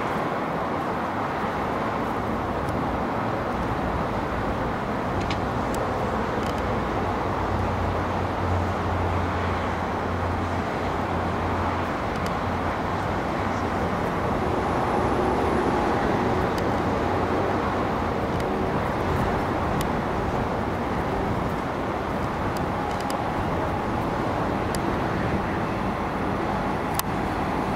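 Steady outdoor rumble of road traffic mixed with a Comeng electric suburban train approaching along the line, with a low steady hum coming and going.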